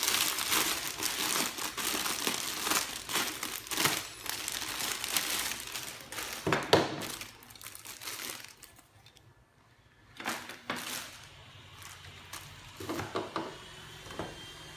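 Plastic packaging crinkling and rustling as toy foam-dart blaster parts are unpacked and handled, dying down about halfway through, then a few separate light clicks of plastic parts.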